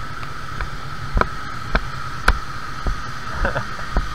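Steady hiss of a car-wash pressure washer spraying, with a sharp click about every half second.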